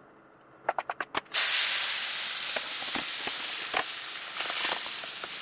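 Chopped tomato going into hot olive oil in a frying pan: a few quick knocks, then a sudden loud sizzle about a second and a half in that settles into steady frying with scattered crackles.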